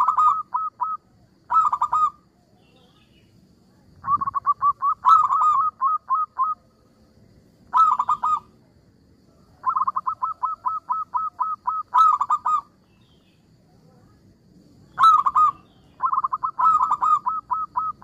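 Zebra dove (perkutut) cooing: phrases of quick staccato notes, repeated in bursts a second or two apart, some short and some running on for two or three seconds.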